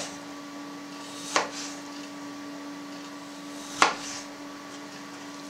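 Kitchen knife cutting through beetroot and knocking on a wooden cutting board, two sharp knocks about two and a half seconds apart. A steady hum runs underneath.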